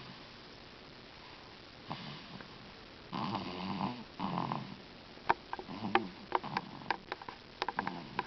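Snoring in short rough breaths, a few of them close together in the middle. A run of sharp clicks or smacks comes in the second half and is the loudest part.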